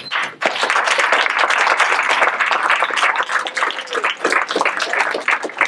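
A small audience applauding, many hands clapping at once in a dense patter.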